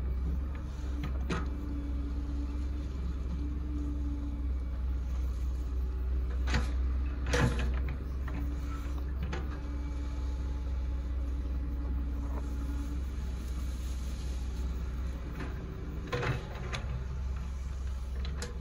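Hitachi Zaxis 110 excavator's diesel engine running steadily while digging a trench, with a steady hydraulic whine that comes and goes. A few sharp knocks from the working bucket and arm, the loudest about seven seconds in.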